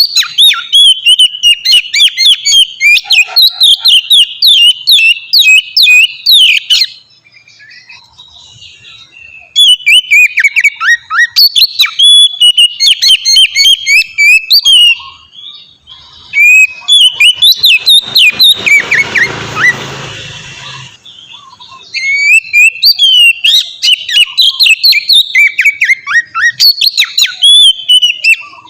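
Oriental magpie-robin singing in the open, full 'ngeplong' style: loud runs of rapid, sliding whistled notes, broken three times by short pauses. A brief rush of noise sounds under the song about two-thirds of the way through.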